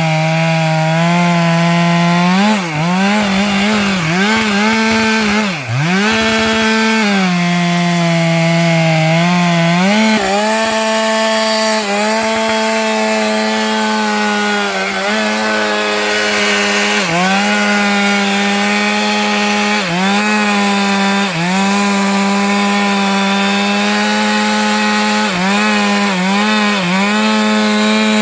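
Stihl MS 462 two-stroke chainsaw cutting into a sengon trunk at high revs. Its pitch sags sharply a few times, deepest about six seconds in, as the chain bogs down in the wood, then climbs back and holds steady through most of the cut.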